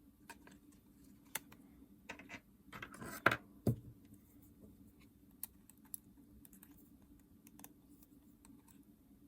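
Small sharp clicks and taps of plastic console parts being handled and fitted together, with a brief scraping rustle about three seconds in and a dull knock just after.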